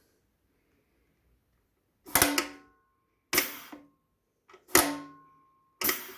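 DieTech nick grinder working: four short, sharp strokes about a second and a quarter apart, each with a brief metallic ring that dies away quickly.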